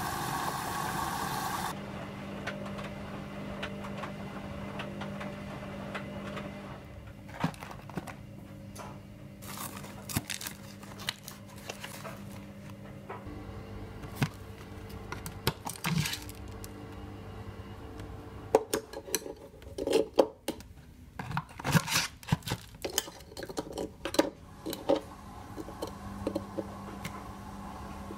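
A cardboard food box being torn open and handled, and frozen breaded crispy pancakes laid on the ridged plate of an electric contact grill: scattered taps, rustles and knocks, sparse at first and busiest in the second half.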